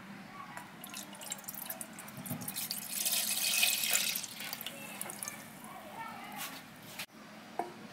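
Milk poured from a jug into a nonstick saucepan: splashing into the empty pan, loudest about three to four seconds in, then thinning to a trickle and drips.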